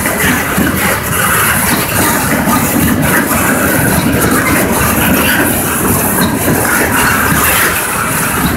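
Norfolk Southern freight train of coil cars loaded with steel coils rolling past, its steel wheels running steadily on the rails.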